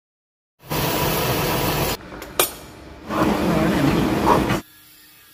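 Machine tool cutting rack teeth into a steel sleeve, heard in short edited stretches of loud machining noise. A quieter stretch between them holds a sharp metallic clink, and the sound drops to a low steady hum near the end.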